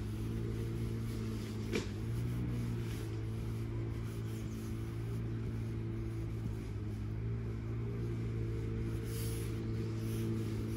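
Steady low drone of a motor vehicle's engine, with a single sharp click about two seconds in and faint pencil strokes on paper.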